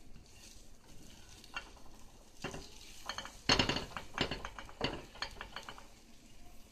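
A utensil scraping and knocking against a frying pan as scrambled eggs with peppers and onions are pushed around, with a faint sizzle underneath. The scrapes come in a quick run in the second half, loudest about three and a half seconds in.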